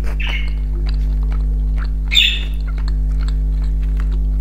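A bird chirps twice in short, high calls, over a steady low hum, with faint small clicks of fried fish being pulled apart and chewed.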